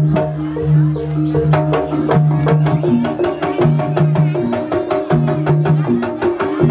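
Gejok lesung music: wooden pestles knocking on a wooden rice-pounding trough in a fast interlocking rhythm, about five or six knocks a second, over held low pitched tones.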